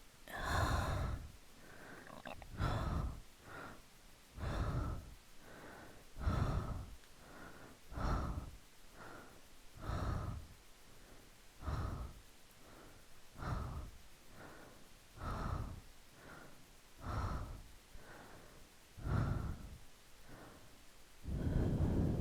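Slow, close-miked ASMR breathing: a stronger breath about every two seconds with a softer one between each, and a longer, louder breath near the end.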